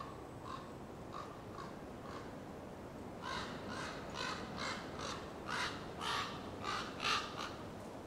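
A crow-family bird giving a rapid series of harsh caws, faint at first, then louder and closer together from about three seconds in.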